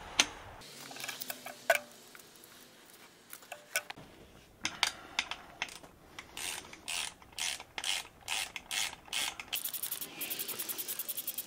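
Metal clinks and knocks as a parking heater on its steel mounting bracket is fitted and its bolt lined up against the car's bumper frame. Near the end comes a fast, even run of clicks.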